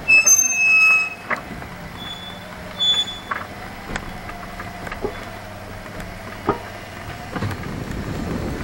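Golf cart running along with a steady low hum, a loud high-pitched squeal in the first second and a few shorter squeaks, and scattered sharp knocks and rattles from the cart.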